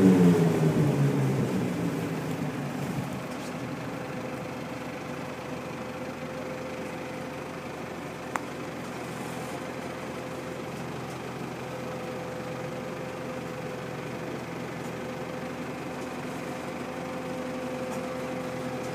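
Braud 9090X grape harvester's diesel engine and machinery winding down in revs over the first couple of seconds, then running steadily at a lower, idling level with a steady whine. A single sharp click about eight seconds in.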